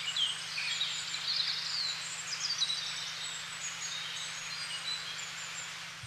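Small birds chirping over a steady hiss of outdoor ambience, slowly fading toward the end.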